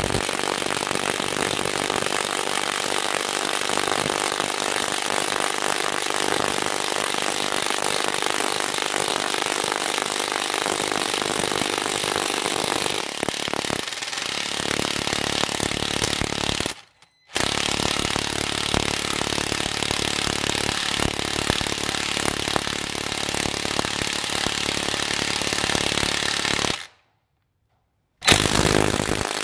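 Two cordless impact wrenches, a Parkside PASSK 20 Li A1 and a DeWalt DCF894, hammering together under heavy load as they drive long 12x280 mm screws into a log. The rapid impacting runs continuously, cut off twice by brief dropouts, the second about a second long near the end.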